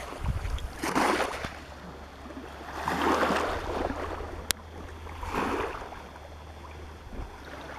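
Small waves washing up on the shore three times, about two seconds apart, over a low rumble, with a single sharp click about halfway through.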